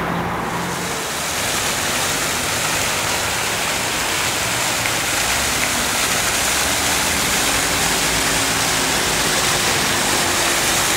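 Ornamental fountain jets spraying over rocks and splashing into a basin: a steady rushing hiss of falling water that sets in about half a second in.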